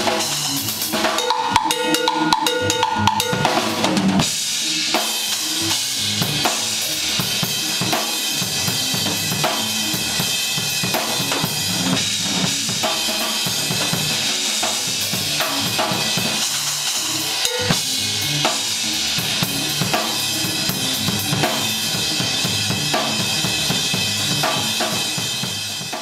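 Acoustic drum kit played fast and densely: snare, bass drum and toms under a constant wash of cymbals. The level falls away right at the end.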